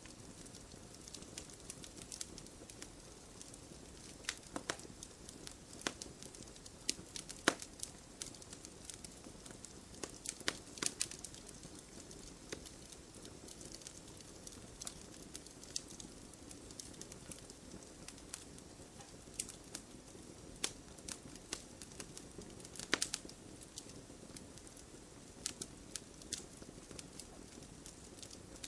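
Wood fire crackling: a soft steady hiss with irregular sharp pops and snaps, a cluster of them about ten seconds in and a loud pop near the end.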